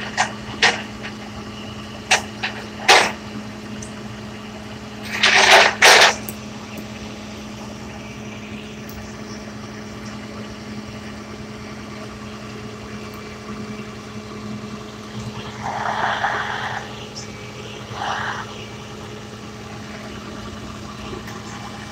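A vehicle engine idling with a steady hum, with a few sharp knocks or clanks, the loudest two close together about five to six seconds in.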